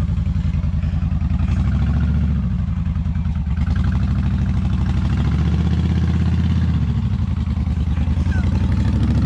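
V-twin bobber motorcycle engine running at low revs, its steady pulsing beat rising and falling a little as the bike labours slowly through soft sand.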